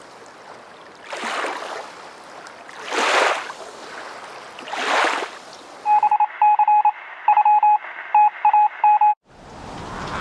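Three swells of whooshing noise, about two seconds apart. Then, about six seconds in, a single-pitched beep keyed on and off in short and longer beeps like Morse code, which cuts off suddenly about nine seconds in before the noise rises again.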